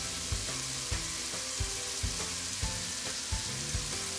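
Chicken, sausage and shrimp sizzling in a hot pan as they are stirred, with short low knocks about twice a second.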